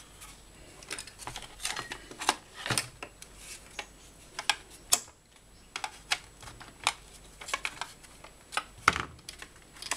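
Plastic housing of an electric grass trimmer being pried apart with a screwdriver: irregular sharp clicks and knocks of plastic catches and tool against plastic, the loudest near the end.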